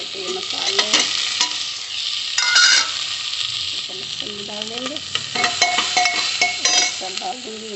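Mixed vegetables sizzling in hot oil in a pressure cooker, stirred with a slotted spatula that scrapes and clicks against the pot.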